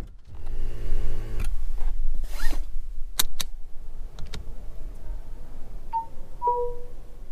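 An electric window motor hums for about a second near the start. Then come a few sharp clicks as a phone is set down on a wireless charging pad, and two short electronic beeps near the end as the pad starts charging it.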